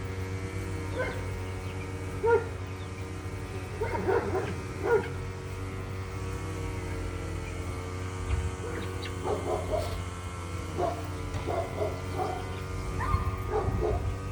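Dogs barking in the background: scattered barks and yips, some in quick clusters, with a quieter stretch in the middle.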